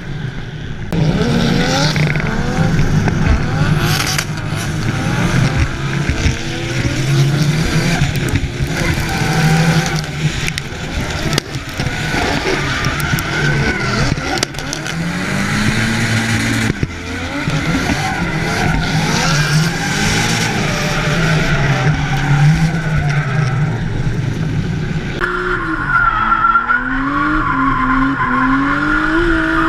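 Drift cars' engines revving hard, pitch rising and falling again and again, with tyres squealing and skidding as the cars slide sideways. Near the end the sound is heard from inside a car's cabin, the engine revving up and down in quick swings.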